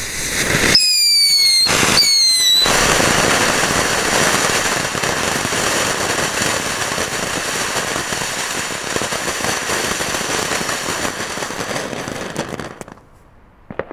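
Nico cuckoo firework fountain spraying sparks with a loud, steady hiss. About a second in it gives two short falling whistles, one after the other. The spray stops abruptly near the end, followed by one click.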